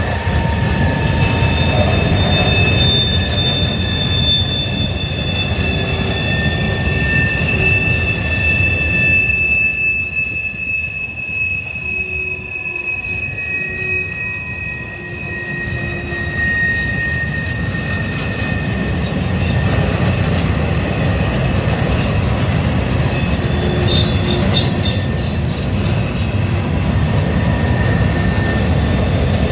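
Freight train of gondola cars rolling past: a steady rumble of steel wheels on the rails, with long high-pitched squeals from the wheels that hold and drift through the passage.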